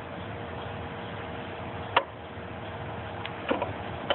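Thickness-adjustment dial of a prosciutto slicer clicking as it is turned by hand: one sharp click about two seconds in, then a few quicker clicks near the end, over a steady low hum.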